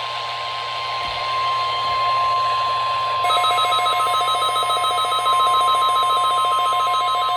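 NOAA Weather Radio warning alarm tone, the single steady 1050 Hz tone sent for the weekly test, sounding over radio hiss. About three seconds in, rapid, evenly pulsing electronic beeps join it.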